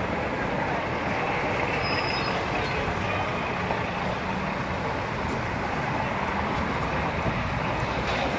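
Steady city street ambience: the even hum of road traffic mixed with outdoor urban din. A brief high squeak comes about two seconds in.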